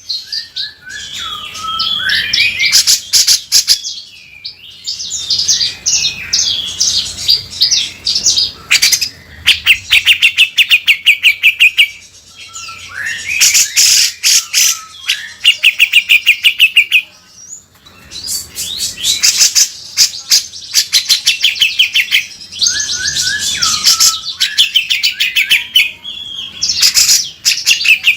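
Cucak jenggot (grey-cheeked bulbul) in full song with rough, rasping phrases. Fast even runs of about ten harsh notes a second alternate with short falling whistles, broken by brief pauses.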